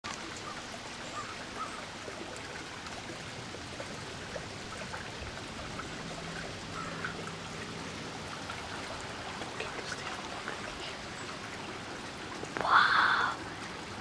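Steady outdoor background hiss, like running water, with a few faint scattered bird chirps. Near the end, a single loud harsh call lasting under a second cuts through.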